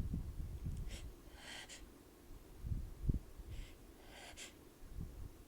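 A person sniffing several times in short, sharp sniffs through an irritated nose, with breaths between them, in the middle of a sneezing fit.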